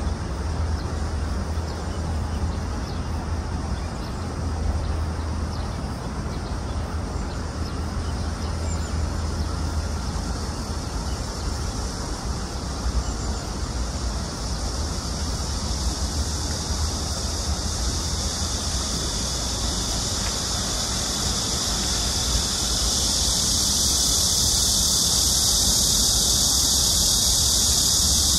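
Steady outdoor background noise: a low rumble with a high-pitched hiss that grows louder over the last few seconds.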